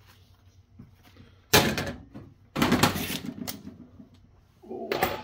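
Handling clatter on a metal workbench: a sharp knock about one and a half seconds in, then a longer rattling clatter, and another short clunk near the end.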